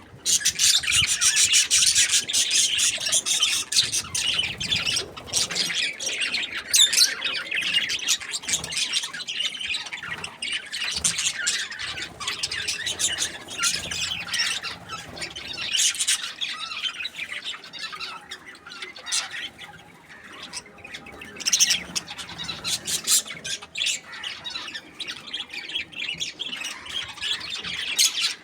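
Budgerigar chirping and chattering without pause, a dense run of short, high calls and squawks.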